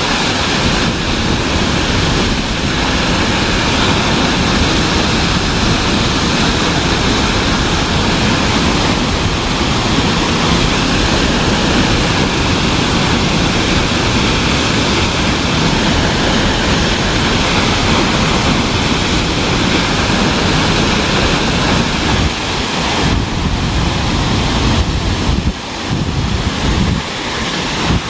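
Pulhapanzak waterfall: a loud, steady rush of falling water. The level dips briefly a few times near the end.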